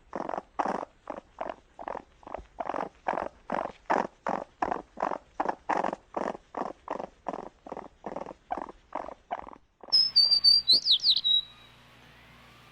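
An animal calling in a steady series of short, harsh calls, about three a second. Near the end it gives way abruptly to a brief burst of high, gliding chirps and whistles.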